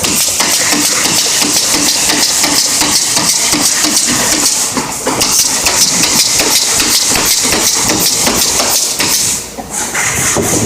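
Pneumatic stapler firing staples into wood in quick succession, several shots a second over a steady hiss, with a short lull near the end.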